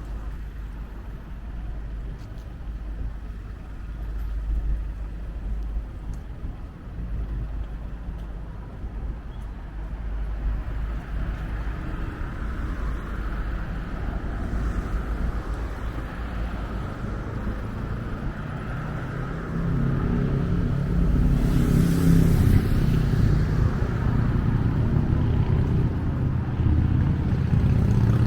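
Road traffic in a city street: a steady rumble of engines and tyres that grows louder about two thirds of the way in as a vehicle passes close, with a brief rush of tyre noise.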